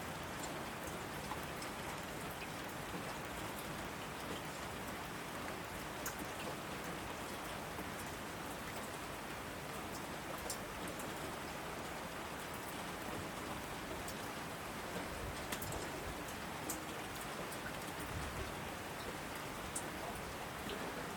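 Heavy rain falling steadily on an asphalt road, an even hiss with scattered sharp ticks of individual drops striking.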